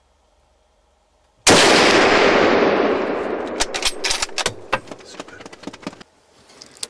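A single scoped hunting rifle shot, sudden and loud, its report dying away over about two seconds. It is followed by a run of sharp clicks, then one more near the end.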